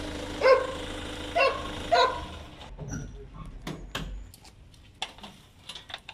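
A dog barking three times in quick succession over a steady hum, then scattered clicks and knocks after the hum stops.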